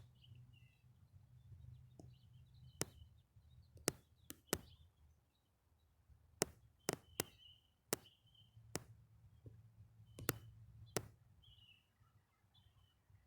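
Sharp clicks and knocks at uneven intervals, a dozen or so, over a low steady hum, with faint short high chirps of small birds in the background.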